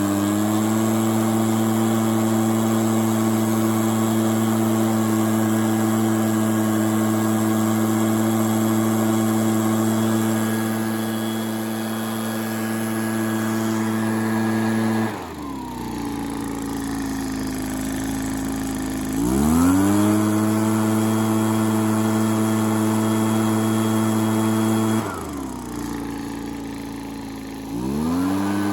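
Echo PB265L backpack blower's small two-stroke engine and fan running at full throttle. About halfway through it drops to idle and revs back up a few seconds later, then drops to idle again and revs up just before the end.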